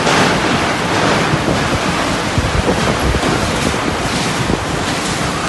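Loud, steady rush of storm wind and heavy rain from a tornado, with gusts buffeting the microphone.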